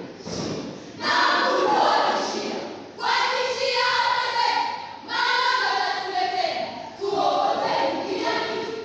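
A school group performing a choral verse, many voices delivering the lines together in unison. Each phrase starts about every two seconds, with a short dip between phrases.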